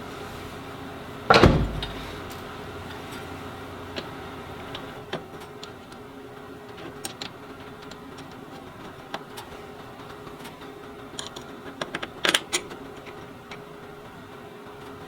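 A heavy thump about a second in, then scattered light clicks and knocks over a steady faint hum, with a louder cluster of sharp knocks near the end: someone handling and setting down parts in a workshop.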